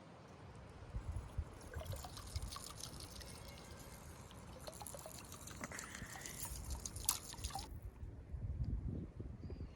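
Liquid pouring and trickling, stopping suddenly about three-quarters of the way through, over a low rumble.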